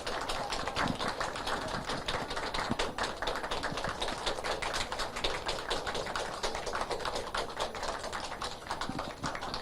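Audience applauding, a steady patter of many hands clapping that thins slightly near the end.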